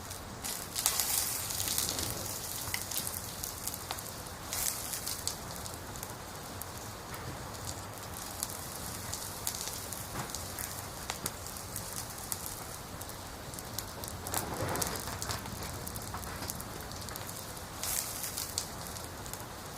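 Wood burning in a campfire, crackling and popping over a steady hiss, with a few flurries of louder crackles.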